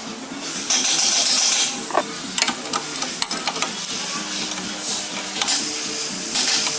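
A wrench clicking and scraping on a fuel line fitting of a diesel common-rail fuel rail as a big-bore fitting is swapped in. Several short bursts of hiss come through as he works, the first about half a second in.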